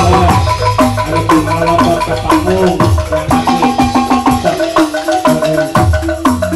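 Sundanese calung music: bamboo calung tubes struck in quick, rhythmic runs of notes over kendang hand drums, whose strokes slide down in pitch, with a deep bass underneath.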